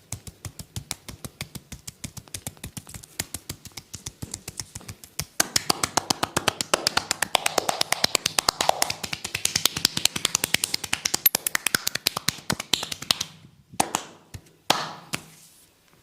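Rapid, rhythmic hand strikes of a percussive tapping massage, several slaps a second. They grow louder about five seconds in, stop abruptly past the thirteen-second mark, and are followed by a couple of separate slaps.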